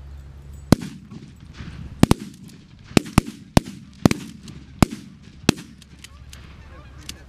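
A volley of about nine shotgun blasts from several guns over some five seconds, two of them almost together, with a fainter shot near the end. Geese honk between the shots.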